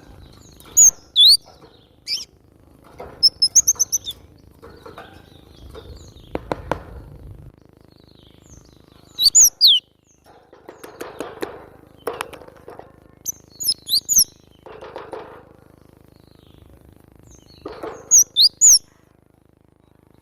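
Cinereous tit (glatik batu) singing: clusters of two to five sharp, very high, quick notes, repeated every few seconds, with softer scratchy sounds between the clusters.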